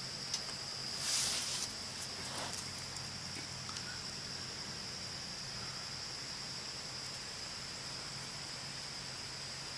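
Steady high-pitched insect chorus, with a brief rustle about a second in.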